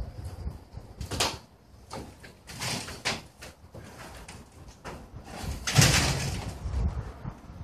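Sheet of corrugated metal roofing scraping and rattling as it is dragged up over a truck's steel bow frame, in several separate pulls with the loudest about six seconds in.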